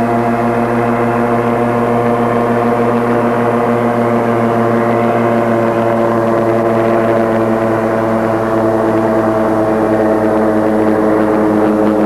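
Petrol engine and propeller of a tandem-wing ground-effect craft running, a steady pitched drone that sinks slightly in pitch.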